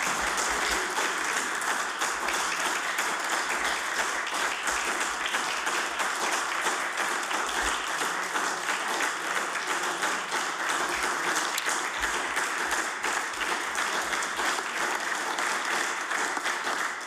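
Long, steady applause from the members of a legislative chamber at the close of a maiden speech.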